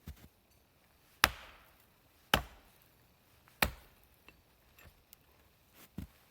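An axe chopping wood: three hard, sharp blows about a second apart, with lighter strikes at the start and near the end.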